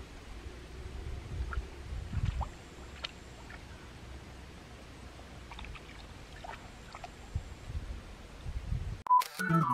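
Low rumble of a shallow stream and wind on the microphone, with a few faint short high chirps. About nine seconds in, an abrupt cut brings in a louder, different sound.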